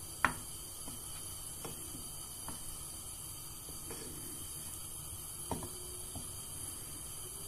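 Quiet kitchen sounds as butter melts in a nonstick pan: a steady low hum, with one sharp click about a quarter second in and a handful of softer clicks of the pan being handled.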